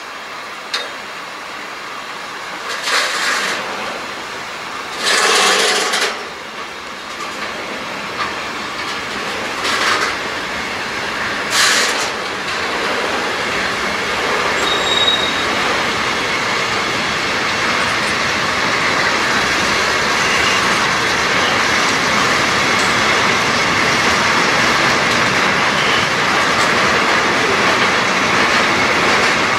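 Freight train of container and tank wagons rolling past, its wheel-on-rail noise steady and growing louder. Several short screeches of wheels on the rails come in the first half.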